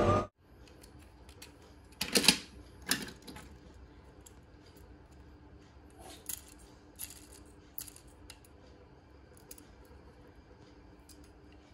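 Scattered small clicks and taps of a die-cast toy car and its plastic parts being handled and turned in the fingers, the loudest cluster about two seconds in.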